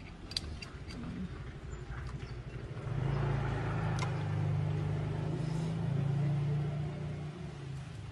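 A motor vehicle's engine running with a low, steady hum that swells about three seconds in and drops back about seven seconds in, with a few light clicks.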